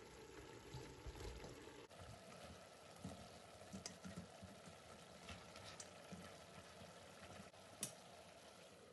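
Veal and spices cooking in a stainless steel stew pot, a faint steady sizzle, with a few light clicks and knocks, the loudest near the end.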